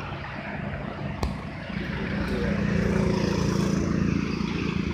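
Road traffic: a motor vehicle's engine hum passing close by, growing louder about halfway through. A single sharp click a little over a second in.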